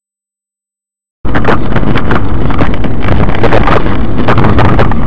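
Silence, then about a second in, loud, distorted road and wind noise from inside a moving car, picked up by a dashcam microphone, starts abruptly.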